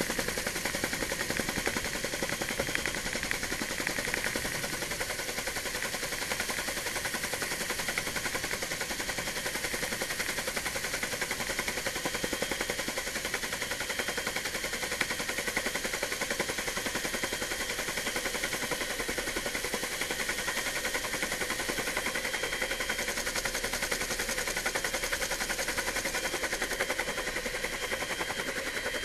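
Helicopter heard from on board, its rotor and turbine engine running steadily: a fast, even rotor chop under a high, steady turbine whine.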